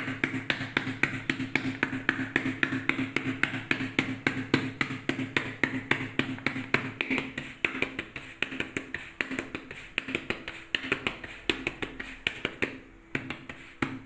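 Palm rapidly patting jowar (sorghum) bhakri dough flat on a steel plate, a steady run of soft slaps about four a second.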